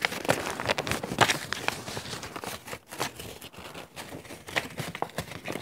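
A sheet of paper rustling and crinkling as it is folded by hand, in irregular crackly bursts.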